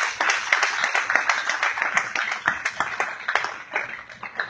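A small crowd clapping; the claps thin out and get quieter near the end.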